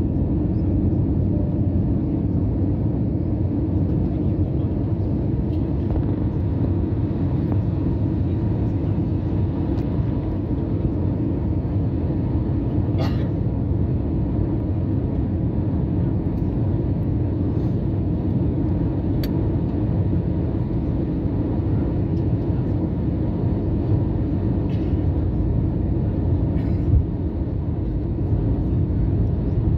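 Steady low drone of engine and airflow noise inside an Airbus A320's cabin during the descent to land, with a faint click about halfway through.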